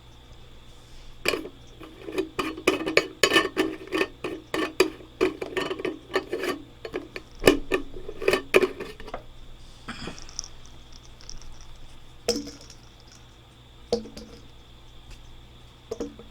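A ball rattling and knocking inside a hard plastic container: a quick run of clatters for about eight seconds, then three single knocks spaced a couple of seconds apart.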